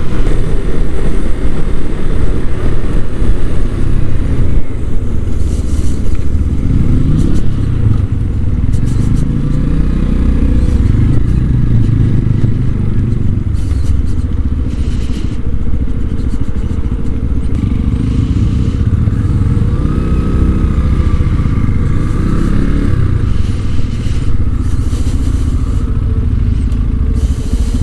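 Sinnis Akuma 125cc motorcycle being ridden, its engine pitch rising and falling as it revs up and eases off, under heavy wind rumble on the bike-mounted camera.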